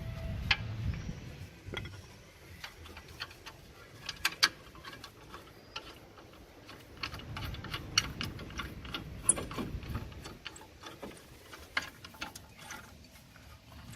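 Irregular metallic clicks and ticks of hand tools and metal brake parts being worked on while new rear brake pads are fitted, over a low background rumble.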